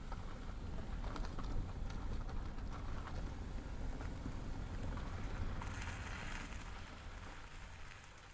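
A car driving past: low engine rumble with crackling tyre noise, loudest about six seconds in and fading away near the end.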